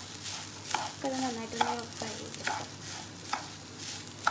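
A spatula stirring and scraping washed basmati rice as it fries in butter and oil in a non-stick pan. The rice sizzles steadily, and a scrape or tap of the spatula against the pan comes a little under once a second.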